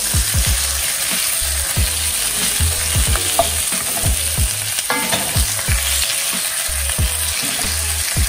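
Boiled potatoes sizzling as they fry in melted butter in a frying pan, with a wooden spatula scraping and turning them now and then.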